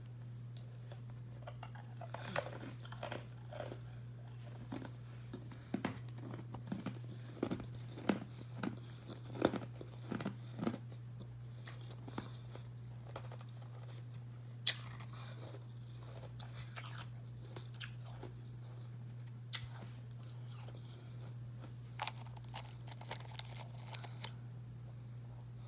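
Mouth chewing and crunching carbonated ice close up: a run of sharp, irregular crunches, then quieter gaps with a loud crunch now and then and another cluster near the end.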